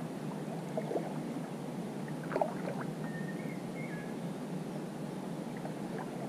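Water gurgling and trickling steadily around a kayak on a river, with a few small splashes in the first few seconds and a brief faint high chirp near the middle.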